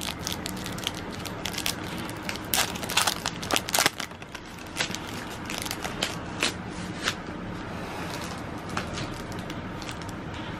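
Foil Pokémon card booster-pack wrapper crinkling and crackling as it is torn open by hand, densest in the first few seconds. The crackling thins out after about seven seconds into quieter rustling as the cards are handled.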